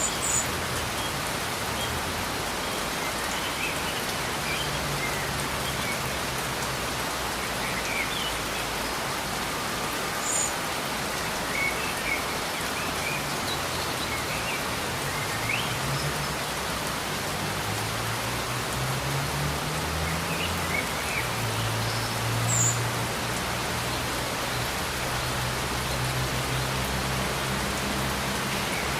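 Steady rain falling, with a low hum underneath that shifts and glides up in pitch through the middle, and a few short high chirps here and there.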